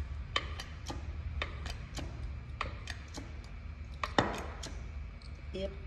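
Hydraulic hand pump being stroked to pressure a 20-ton cylinder, making a run of short light clicks about three or four a second, with one sharper clack about four seconds in. The cylinder is pulling a flanged cylinder sleeve down to seat it in the block. A low steady hum runs underneath.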